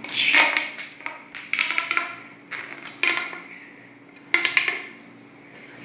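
Plastic rustling and clicking as fidget toys and their packaging are handled, in four short bursts.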